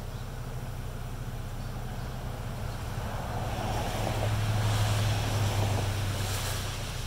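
Honeybees buzzing around a swarm trap, with a rushing swell of noise from about three and a half to six and a half seconds in.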